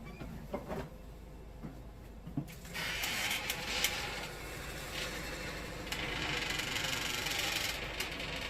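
Wood-Mizer sawmill machinery working the big log forward, probably its hydraulics. A few knocks come first. About three seconds in a steady mechanical whirring noise starts; it eases briefly and comes back strong before dropping near the end.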